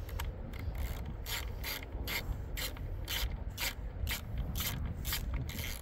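Hand ratchet wrench clicking in short, even strokes, about two a second, as it runs down the mounting bolts of a replacement CDI power pack on an outboard motor.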